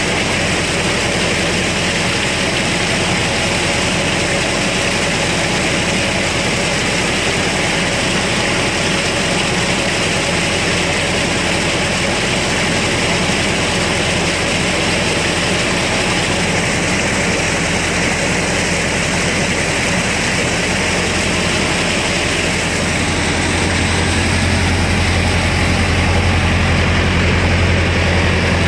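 Mahindra Arjun Novo 605 DI-i tractor's diesel engine running steadily under load, driving a rotavator that churns and splashes through the mud of a flooded paddy field. A deep low hum from the engine grows louder near the end.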